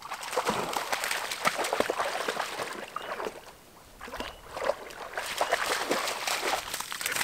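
Irregular splashing and sloshing in shallow, marshy water, with a short pause about three and a half seconds in.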